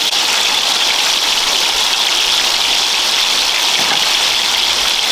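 Food frying in hot oil in a pan: a steady, loud sizzle.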